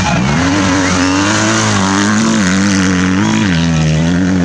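Dirt bike engine revving hard, its pitch climbing and then stepping down several times.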